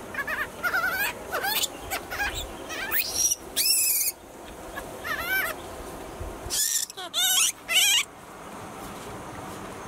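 Baby langur squealing: a string of short, high, wavering cries, about a dozen, some shrill and piercing, clustered in the first eight seconds.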